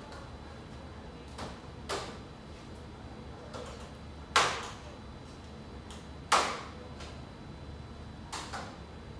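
Sharp plastic clicks and knocks as an LED grow-light bar and its clips are handled and fitted onto a PVC pipe frame. There are a handful of them, the two loudest about four and a half and six and a half seconds in, with smaller ones around two seconds and near the end.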